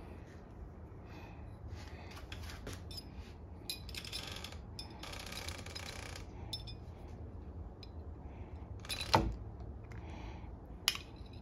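Smart deadbolt hardware handled during installation: small metal parts clicking and scraping, with one sharp knock about nine seconds in and a lighter click near the end.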